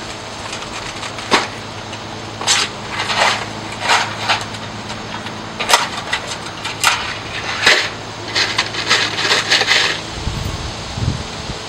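A small cardboard box of plastic screw packages and a small tool being handled and set down on cardboard siding cartons: a string of sharp knocks, rustles and plastic rattles, with a few dull thuds near the end.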